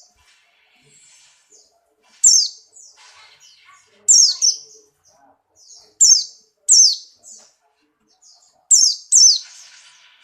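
White-eye (pleci) giving loud, sharp high calls that sweep downward, mostly in pairs about every two seconds, with faint twittering between them.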